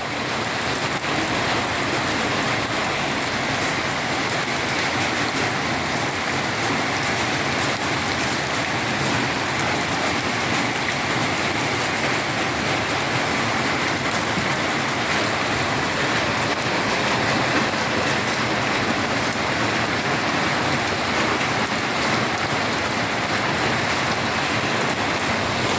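Heavy rain falling steadily, a dense even hiss of rain hitting the ground and nearby surfaces.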